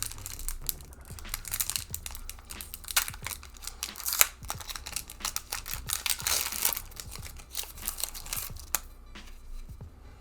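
Foil trading-card booster pack crinkling and tearing as it is opened by hand, in a series of irregular crackles with a few louder bursts.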